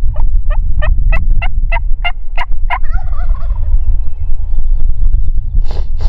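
Wild turkey calls: a series of about nine evenly spaced yelps, followed about three seconds in by a roosted Merriam's gobbler gobbling. A steady low wind rumble on the microphone runs underneath.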